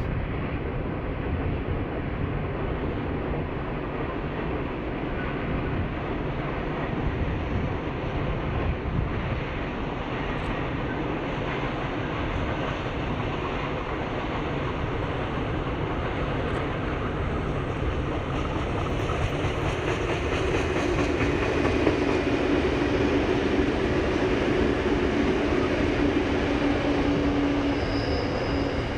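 Diesel-hauled container freight train approaching and passing: a steady engine and wheel rumble that builds from about two-thirds of the way through, with a steady hum coming in as the locomotives and wagons go by.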